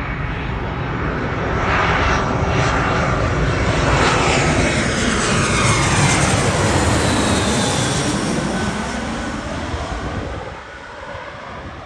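Twin-engine jet airliner passing low overhead on landing approach. The engine noise builds to a peak mid-way, with whining tones sliding down in pitch as it passes, then fades near the end.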